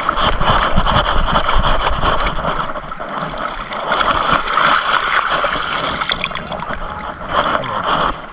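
Shallow water sloshing and churning as a perforated metal sand scoop is pushed into the sandy bottom and lifted out, with water trickling through its holes.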